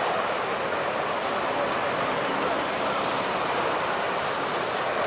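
Steady rushing noise of the tsunami surging through the town.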